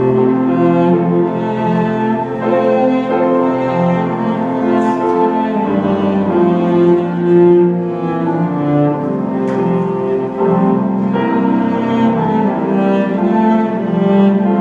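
Church orchestra playing, string section to the fore, with held notes changing every second or so.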